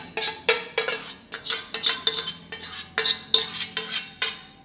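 Aluminium saucepan being scraped out, a quick run of sharp scraping and knocking strokes, about three a second, each leaving a short metallic ring, as boiled chillies and garlic are emptied from it.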